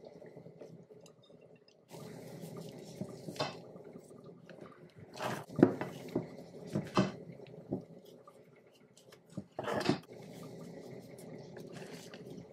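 Spatula folding whipped egg whites into cake batter in a glass bowl: soft wet squelching with a handful of sharp knocks and scrapes of the spatula against the bowl, the loudest a little before the middle.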